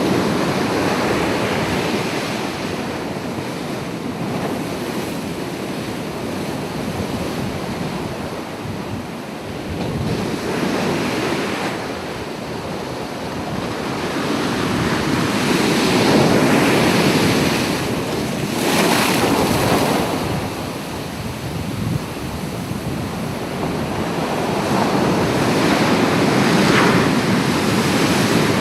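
Ocean surf: waves breaking and washing in a continuous rush that swells and eases every few seconds, with wind on the microphone.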